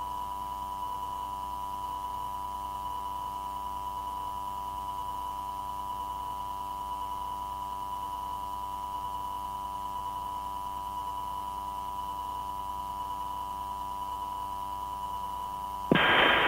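A steady electronic tone with a faint hum under it on an air traffic control radio recording, unchanging in pitch and level. Near the end a loud radio transmission keys in over it.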